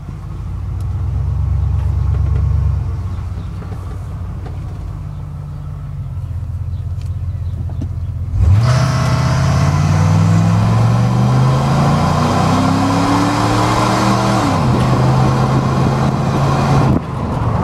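Ford F-150 pickup engine idling at a stop, then pulling away about eight seconds in, its pitch rising under acceleration with a harsh metallic grinding over it. Around fourteen seconds in, the engine drops in pitch as the transmission shifts up. The grinding comes in on take-off under load; the owner likens it to a metal pipe dragged along a chain link fence.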